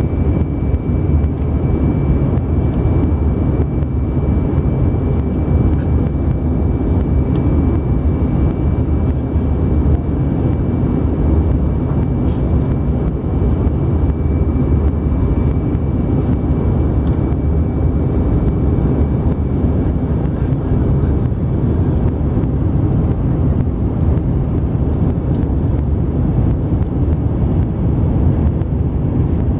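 Airbus A320 cabin noise on the descent to land: a steady, deep rumble of engines and rushing air heard inside the cabin. A faint high steady whine fades out about halfway through.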